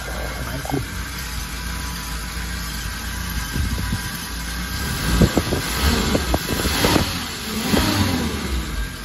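Small Suzuki truck's engine idling, then revved several times in the second half, the revs sliding back down near the end.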